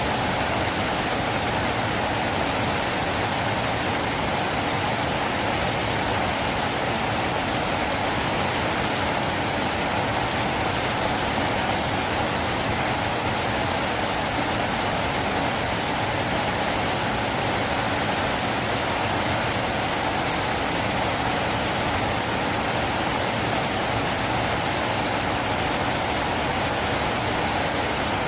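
River water flowing, a steady, even rush that does not change.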